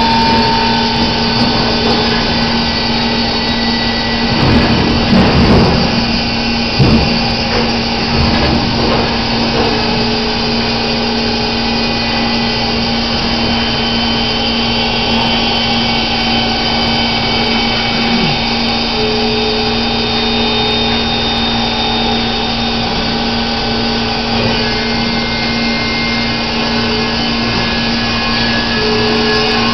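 Band sawmill running: steady machine noise with a constant low hum. A few clunks come about four to seven seconds in.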